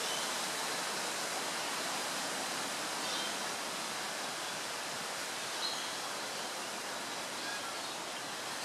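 Steady, even outdoor background hiss, with a few faint, short high chirps of birds scattered through it.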